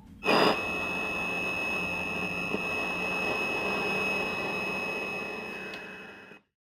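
Radio static: a steady hiss with a high, even whistle, starting abruptly a moment in and cutting off suddenly near the end.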